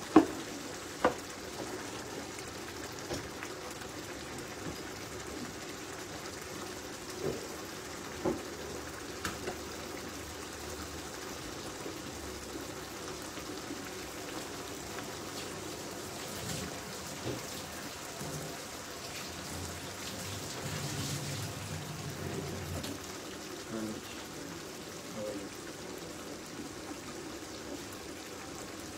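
Tomato sauce simmering in a frying pan, a steady bubbling hiss that sounds like light rain. A few sharp clicks come near the start and again about seven and eight seconds in.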